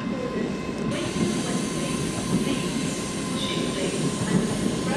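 Passenger train running on the rails: a steady rumble with a thin steady whine over it.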